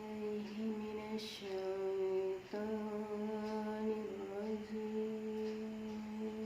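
A single voice holding long, nearly level sung notes in the melodic style of qiro'ah (Qur'an recitation), with a brief break for breath about two and a half seconds in. The voice is hoarse from a cough and cold, in the reciter's own words.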